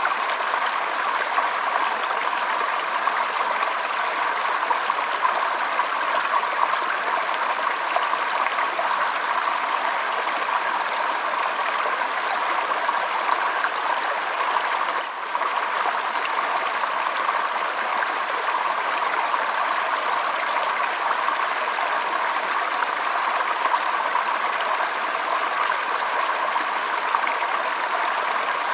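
Running water of a stream, a steady, even rush and trickle that dips briefly about halfway through.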